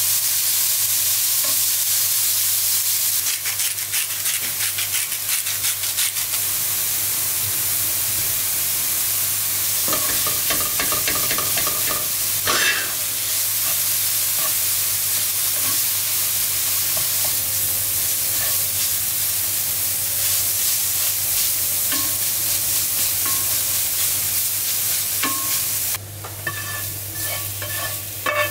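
Shredded jackfruit sizzling in oil in a nonstick frying pan, with a slotted spatula stirring and scraping through it. About two seconds before the end the sizzle drops away suddenly, and the spatula scrapes the jackfruit out of the pan onto a wooden chopping board.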